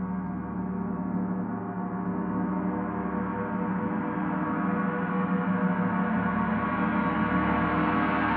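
Paiste Saturn planetary gong, tuned to D at 147.85 Hz, played in a continuous solo: a sustained, shimmering wash of ringing overtones that slowly swells louder and brighter.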